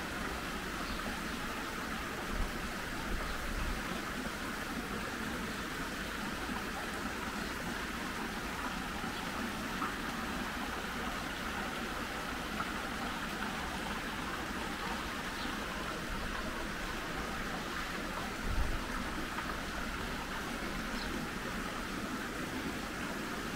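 Running water splashing steadily, as from garden fountains or a water channel, with a couple of brief low thumps.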